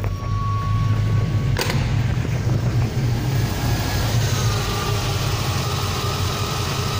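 Chevrolet 350 TBI small-block V8 idling steadily just after a cold start, with no lifter tick yet audible above the running. A steady high tone stops with a click about a second and a half in.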